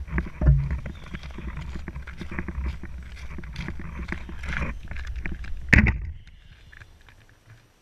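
Footsteps crunching through snow, with wind rumbling on the microphone and handling knocks. About six seconds in comes a loud thump as the camera is set down on the snow, and then the sound dies away to near quiet.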